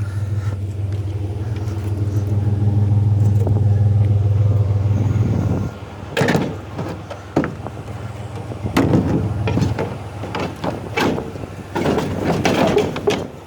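Pickup truck engine running steadily, then dropping away suddenly about halfway through. After that come a string of knocks and clanks as scrap metal is handled.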